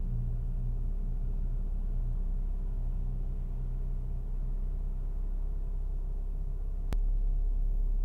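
BMW E92 idling, heard from inside the cabin: a steady low rumble. A single click comes about seven seconds in, after which the rumble is slightly louder.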